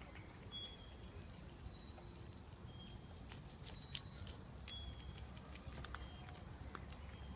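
Faint, scattered clicks and small crunches of a Scottish fold cat nibbling and chewing fresh leaves held out to it, over a low steady background rumble, with a few brief faint high chirps in the background.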